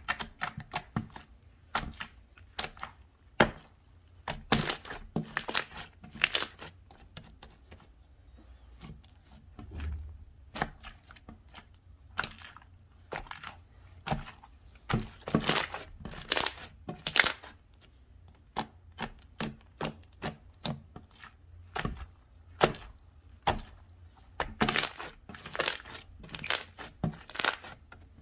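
Slime being squeezed, stretched and poked by hand, giving irregular runs of sharp crackling clicks and pops with short pauses between them.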